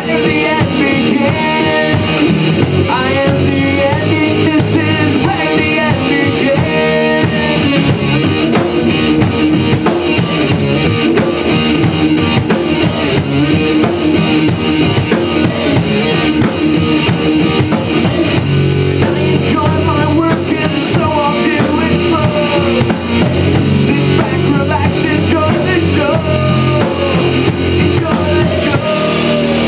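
Live rock band playing: electric guitar and drum kit, with a man singing into the microphone in stretches.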